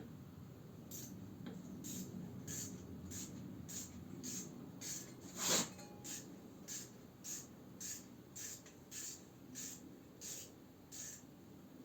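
Ratchet wrench swung back and forth on a small 8 mm fastener, each back-stroke giving a short clicking rasp, about one and a half a second, with one louder stroke near the middle.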